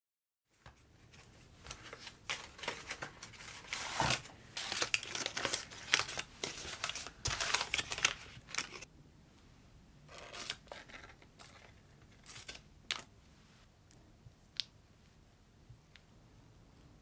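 A butter block's paper wrapper crackling and rustling as it is unwrapped, a dense run of crinkles lasting several seconds. After that come softer, scattered scrapes and taps of a spatula working softened butter in a glass bowl.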